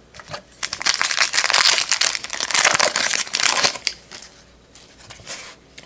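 Foil wrapper of a trading-card pack crinkling as it is torn open and handled, a dense crackle lasting about three seconds, with a few sharp flicks of cards before and after.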